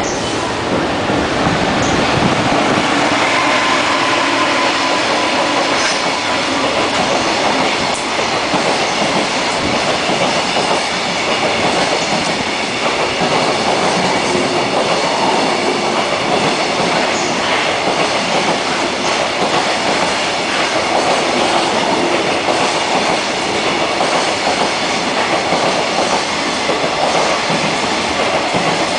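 Container wagons of a fast freight train rolling past, a steady loud rumble and clatter of steel wheels on the rails that runs on without a break.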